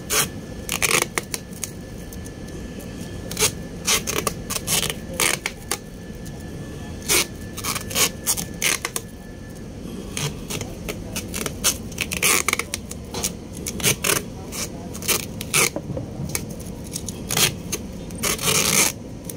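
Adhesive tape being pulled off the roll and wound around the end of a wooden plank: a run of short, sharp rips, a few a second, with one longer rip near the end.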